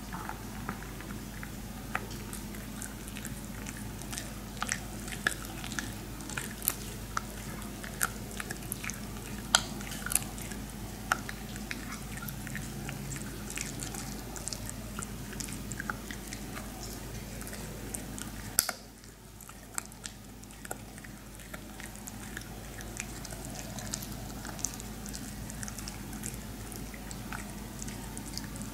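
Maltese dog chewing a dried pig ear slice: irregular sharp crunches and clicks of teeth on the hard chew, over a steady low hum.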